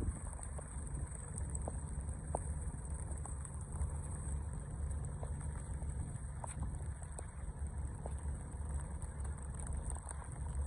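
Outdoor harbour-side ambience: a steady low rumble with scattered faint ticks.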